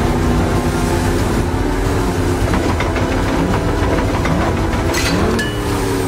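Outboard motorboat engines revving hard, their pitch rising and falling over a deep rush of water and spray, with a couple of sharp knocks about five seconds in.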